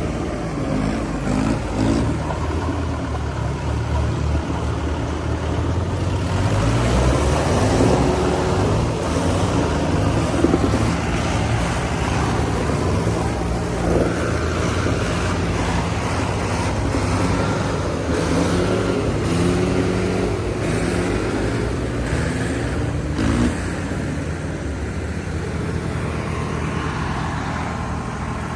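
Tractor diesel engines running steadily, with the engine note wavering as they work.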